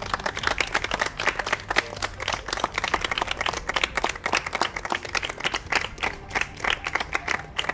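A small group of people clapping by hand, many quick overlapping claps.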